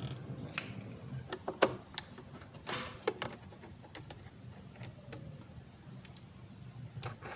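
Screwdriver working the clamp on a turbo inlet hose: scattered sharp metallic clicks and taps, with a short scrape a little under three seconds in.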